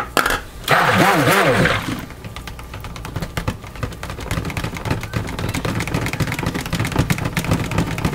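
Stick blender running in a plastic bowl of cold-process soap batter, a steady motor hum with rapid chattering from the blade in the liquid. A short louder burst comes about a second in, before the steady blending.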